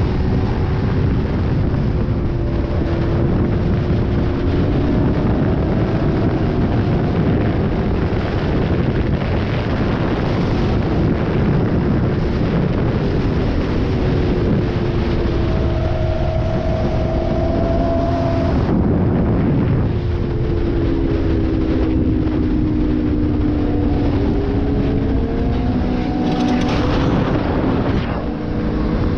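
Suzuki GSX-R sport bike engine running at speed, its pitch rising and falling with the throttle, under heavy wind and road rush.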